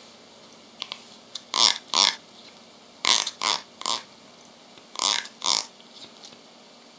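Plastic comb's teeth strummed in short rasps, seven in all, in quick groups of two, three and two.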